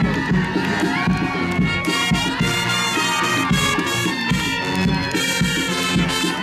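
Brass band music playing, with a crowd cheering and shouting over it.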